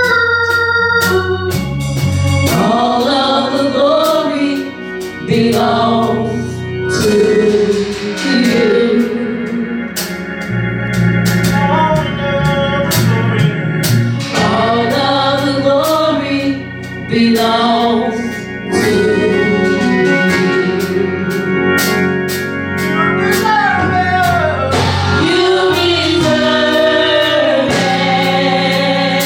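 Gospel music: sung vocals over organ chords with a steady beat.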